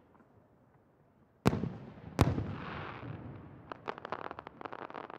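Aerial firework shells bursting: two sharp loud bangs about a second and a half and two seconds in, each trailing off in a hiss, then a run of rapid crackling pops near the end.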